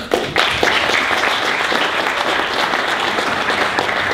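Audience applauding, starting suddenly and keeping up steadily.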